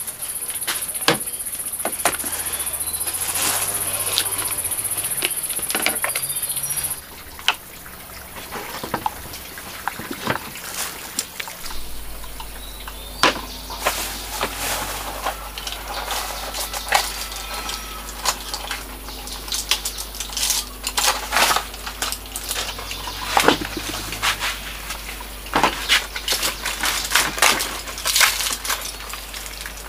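Irregular clicks and knocks, with a steady high hiss that stops suddenly about seven seconds in and a low hum from about twelve seconds in.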